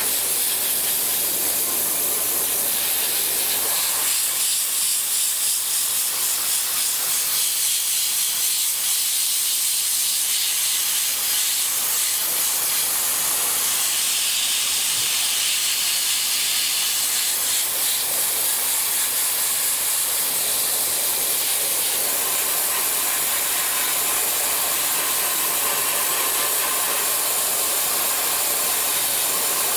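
Dry ice blasting gun spraying continuously against a car's undercarriage: a steady, high compressed-air hiss at the toned-down settings for general cleaning, about 0.4 feed and 55 PSI.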